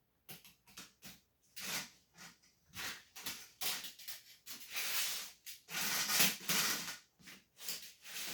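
Plastic Lego train track pieces being handled and fitted together: irregular clicks and rubbing scrapes, with longer scraping between about four and seven seconds in.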